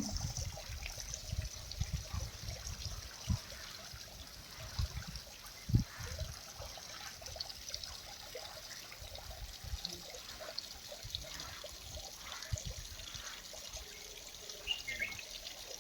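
Water trickling steadily, with scattered low thumps.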